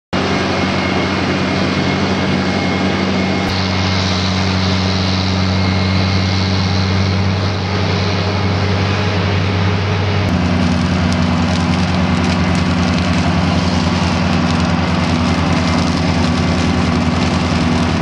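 Dewulf R4060 self-propelled potato harvester running, a loud, steady engine drone with the clatter of its machinery. The tone changes abruptly about three and a half seconds in and again about ten seconds in, with a faster throb in the low end after the second change.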